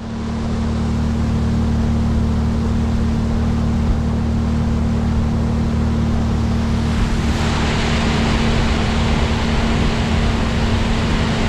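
Honda 30 hp four-stroke outboard motor running steadily at speed, driving a small boat, with water rushing along the hull. About seven seconds in, the rush of water and spray grows louder and brighter.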